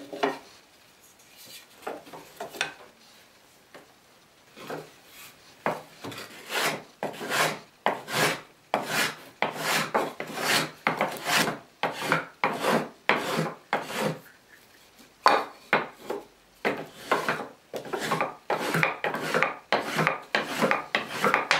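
Hand-tool strokes shaving wood at a workbench, each stroke a short scraping rasp. The strokes are few at first, then run steadily at about two a second from about five seconds in.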